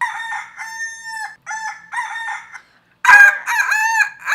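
Rooster crows imitated by voice, high-pitched and broken into several syllables like a cock-a-doodle-doo. One crow comes first, then a louder second one about three seconds in.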